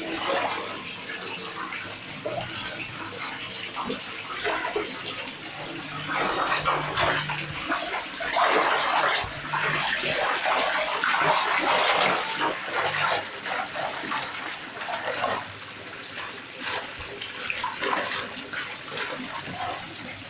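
Pond water splashing and sloshing as a hand net is swept through it, with caught fish thrashing in the net; the splashing is loudest about halfway through.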